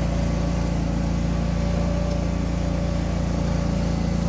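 A self-propelled JayLor TMR feed mixer running at a steady idle, its engine and turning mixing augers making an even, unchanging drone.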